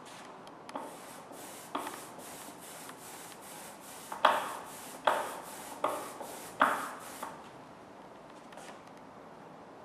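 Hand brayer rolled back and forth over black printing ink on a wooden inking board, giving a quick series of sticky, hissing passes. Several sharp knocks come as the roller is set down or reversed on the board, loudest in the middle. The rolling stops about seven seconds in.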